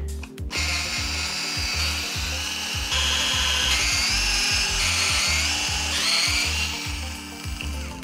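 A 7.2-volt cordless drill backing out the screws that hold the brake disc on a scooter wheel hub: its motor whines steadily from about half a second in, the pitch stepping up and down several times, and stops just before the end. Background music with a steady beat runs underneath.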